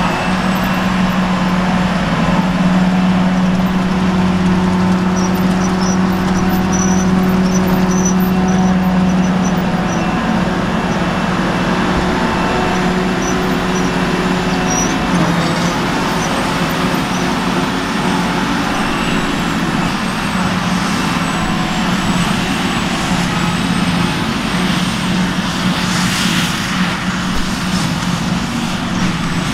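A Claas Jaguar 950 self-propelled forage harvester chopping grass, its engine and chopping drum running under load with a steady hum, together with the Fendt tractor pulling the silage wagon alongside.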